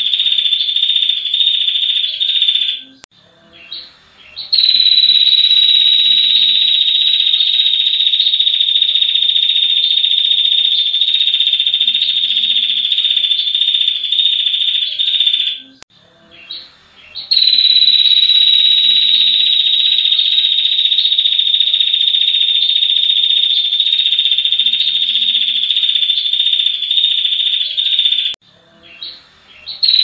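Female ashy tailorbird (prenjak kepala merah) giving its long, even trill ('ngetir panjang') near 4 kHz. The trills last about eleven seconds each, with short pauses of a few brief notes between them: one ends about three seconds in, another runs from about four to fifteen seconds, a third from about seventeen to twenty-eight seconds, and a new one starts at the very end.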